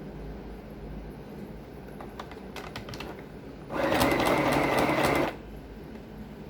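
Electric sewing machine stitching: a few faint clicks, then the machine runs at speed for about a second and a half and stops sharply. A low steady hum sits underneath.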